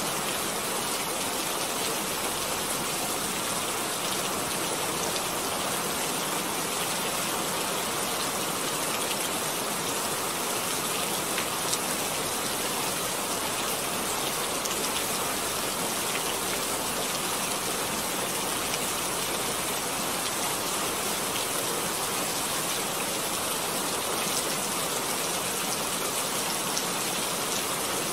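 A steady, even hiss like heavy rain or rushing water, with faint scattered ticks.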